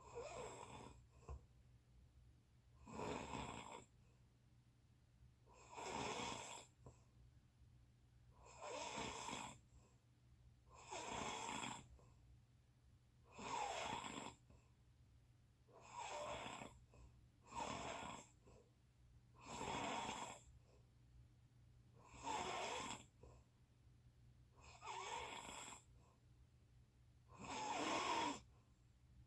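A person snoring in sleep, one snore roughly every two and a half seconds, about a dozen in all.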